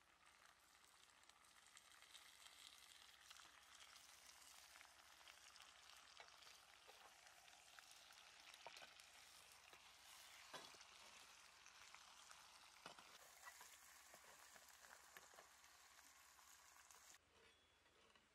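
Faint sizzling of food frying in hot oil in a pan, with scattered crackles and pops; it cuts off suddenly near the end.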